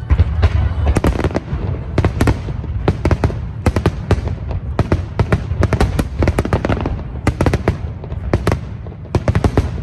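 Fireworks display: rapid, overlapping bangs and crackles of bursting shells, several a second and often in quick clusters, over a continuous low rumble. The barrage starts abruptly.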